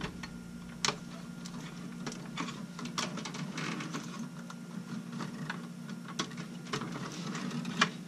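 Irregular small clicks and taps of wire terminals and connectors being handled and pushed onto a furnace control board, over a steady low hum.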